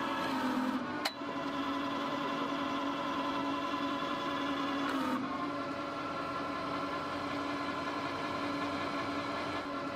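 Steady machine hum at a constant pitch, with a sharp click about a second in.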